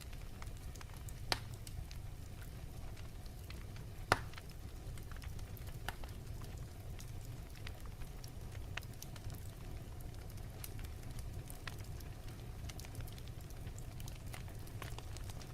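Wood fire crackling: a steady low rumble with scattered sharp pops, the loudest about four seconds in and another just over a second in.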